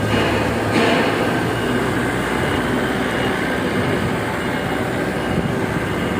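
Engine of a small crane running steadily as it works a load on its hook, with a brief louder surge a little under a second in.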